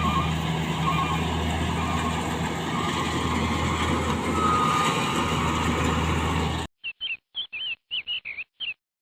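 Kubota DC-70 combine harvester's diesel engine running steadily and evenly, its smooth running being the condition on show. About two-thirds of the way through it cuts off suddenly, and six or seven short bird-like chirps follow over silence.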